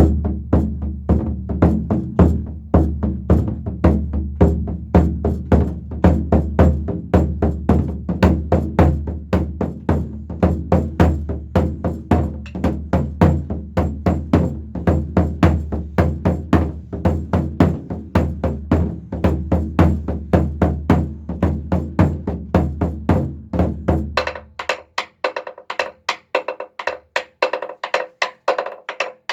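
Nanta drum played with sticks in a quick, galloping 'horse-hoof' rhythm, the strikes booming on the drum head. About three-quarters of the way through the low boom drops away and the strokes turn dry and clicky, as if played on the rim or frame.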